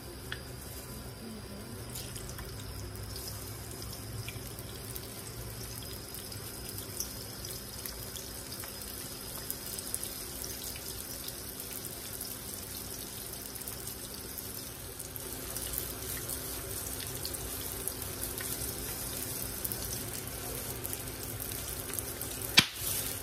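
Water running steadily from a tap into a sink, with a few light clicks and one sharp knock near the end.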